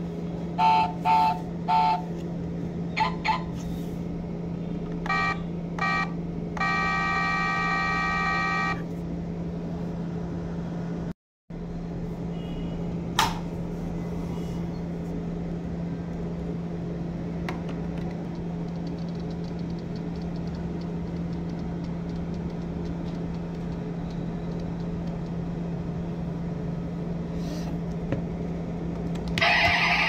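Battery sound module of a diecast Rolls-Royce Dawn scale model playing its horn through a small speaker: several short beeps in pairs, then one longer honk of about two seconds, over a steady low hum. A louder, rougher sound from the next model starts just before the end.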